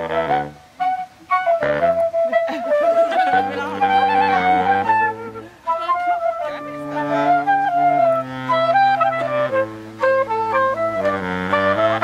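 Saxophones playing a tune: a high melody over a lower line of long held bass notes, which breaks off briefly twice.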